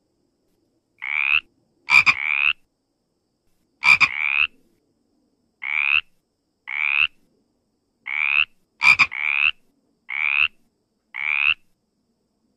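Water frog (Pelophylax) croaking: about ten short rasping calls roughly a second apart, each rising slightly in pitch, with a few opening on a sharp, louder click. The calls stop shortly before the end.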